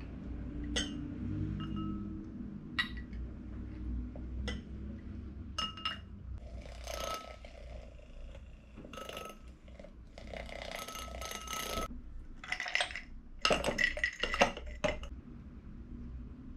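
A spoon clinking and scraping against a mug and a drinking glass while coffee is stirred and spooned. Scattered single clinks ring briefly, then longer runs of stirring and rapid clinking come in the second half.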